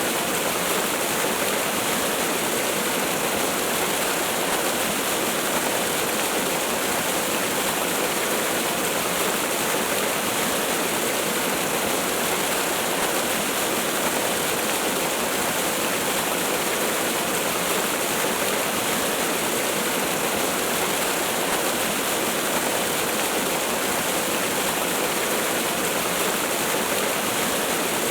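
Waterfall rushing as a steady, unbroken hiss of falling water with little deep rumble.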